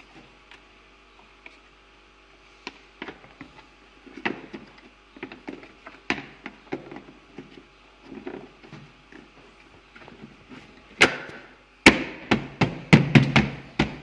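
Grey cover panel being pushed and knocked back into the dishwasher's white plastic frame: scattered clicks, scrapes and knocks, then two sharp loud knocks about eleven and twelve seconds in, followed by a quick run of knocks.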